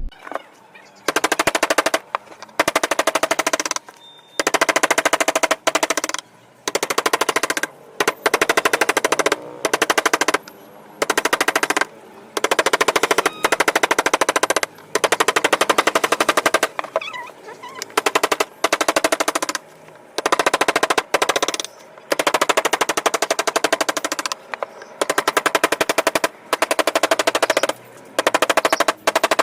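Power carving tool working wood in about twenty short bursts, each a second or so of rapid strikes, stopping and starting again.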